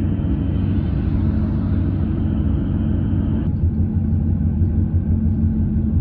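Steady low rumble of road and engine noise heard from inside a moving car, with a low hum under it.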